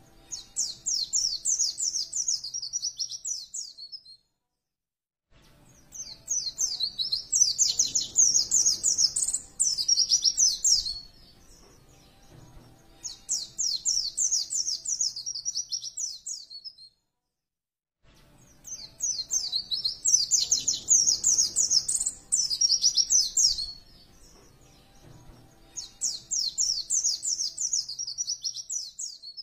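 White-eye (pleci) songbird singing: runs of rapid, high twittering chirps, each lasting a few seconds, with short pauses between them.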